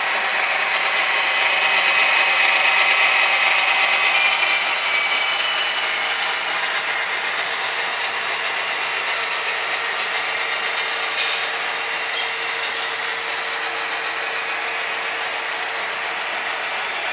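HO scale model diesel locomotive running on the layout: a steady hum and whine from its motor and wheels rolling on the track. It is loudest a couple of seconds in as it passes close, then eases a little as it moves off.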